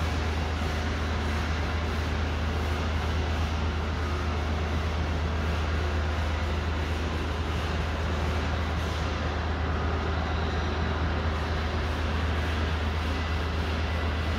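A long-handled scrubbing brush working over a soaked, foamy silk carpet, over a steady low machine hum.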